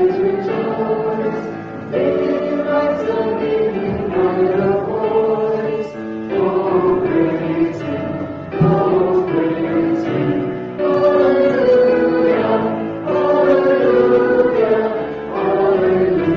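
Hymn sung by a small group of voices, in phrases a few seconds long with short breaks between them.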